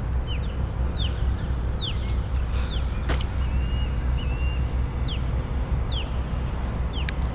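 Birds calling: many short, downward-sliding chirps and a few flat whistled notes, over a steady low rumble. One sharp click about three seconds in.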